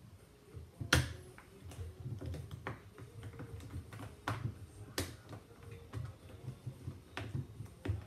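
Hands working the rubber door seal around the rim of a front-loading washing machine's door opening: irregular sharp clicks and knocks over soft handling thumps, the sharpest about a second in.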